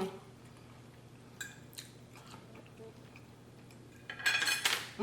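Fork and knife clinking and scraping on a plate while lamb steak is eaten: a few light clicks, then a louder sound lasting about half a second near the end.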